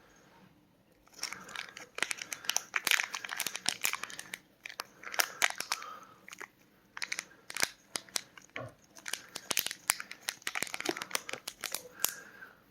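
Packaging crinkling and rustling, with irregular sharp clicks and knocks, as flashlights are handled and unwrapped. It starts about a second in.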